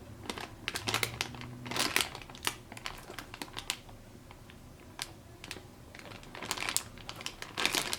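Plastic packaging crinkling in irregular bursts of crackles as a bagged squishy toy is handled, busiest about a second in and again near the end.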